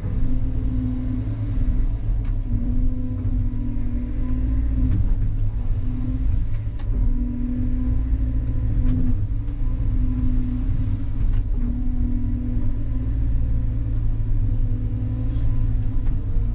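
Diesel engine of a Cat 320 excavator running steadily under work, heard from the operator's seat. A higher hydraulic hum cuts in and out every second or two as the controls are worked, with a few faint clicks.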